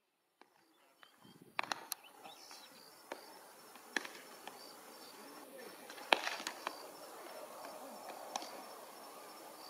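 Open-air ambience with a few sharp pops of baseballs smacking into leather gloves during catch practice, the loudest about six seconds in, over faint distant voices.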